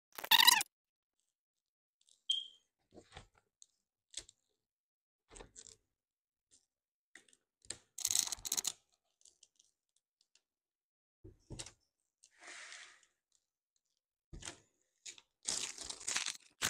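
Adhesive vinyl being trimmed and peeled by hand: scattered short crackles and tearing sounds with quiet gaps between, the loudest just after the start, about eight seconds in and near the end.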